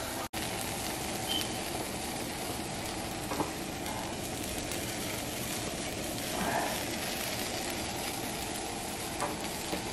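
Lard-smeared tortillas filled with cheese sizzling steadily on a hot comal.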